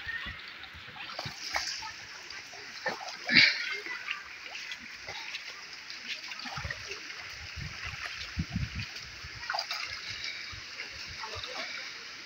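Shallow river water flowing steadily, with repeated splashes as two people scoop water onto their faces and bodies while bathing in it; one louder splash about three and a half seconds in.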